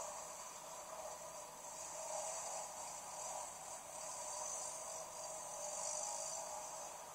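Thin, hissy playback through a camcorder's small speaker: a steady hiss with a wavering mid-pitched rush of noise and no clear engine note or voice.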